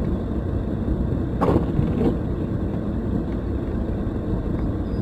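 Steady low rumble of a car's cabin while driving through a snowstorm, with a short sharper sound about a second and a half in and another near two seconds.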